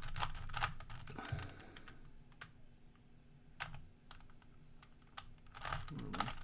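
Plastic Rubik's Cube layers being twisted by hand: a quick run of sharp clicks at the start, a few single clicks, then another run near the end.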